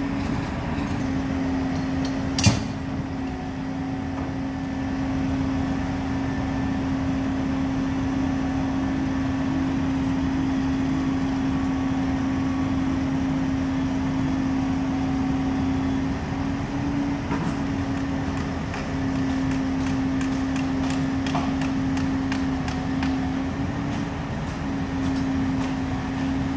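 Utility truck engine running steadily with a constant hum. A single sharp knock comes about two and a half seconds in, and scattered light clicks come in the last third.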